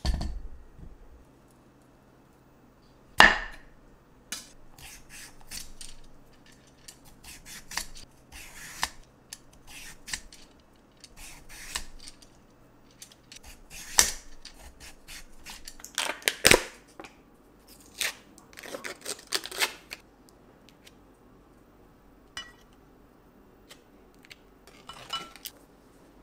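A kitchen knife cuts through a cucumber and knocks sharply on a wooden cutting board. A vegetable peeler then scrapes strips off the cucumber in many quick strokes, some louder than others. Near the end there are only a few faint clicks of utensils.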